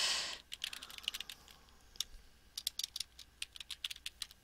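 Typing on a computer keyboard: quick runs of key clicks with a short lull between runs. A brief hiss comes at the very start.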